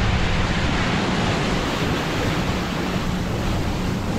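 Wind buffeting the microphone and water rushing past the hull of a boat under way, with a steady low hum underneath.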